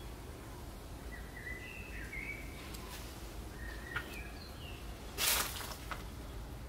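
Small birds chirping in short, separate calls over steady background noise, with a sharp click about four seconds in and a brief rush of noise just after five seconds in, the loudest sound.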